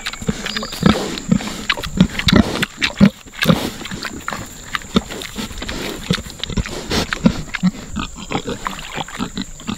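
A group of pigs grunting and eating at a feeder, with short, irregular grunts coming several times a second.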